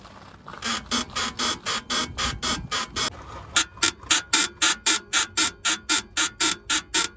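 Rear suspension of a BMW F20 squeaking in a rapid, even series of short squeaks, about five a second, with a brief break about three seconds in. The owner traced the squeak to a worn rear floating bushing (floating silent block).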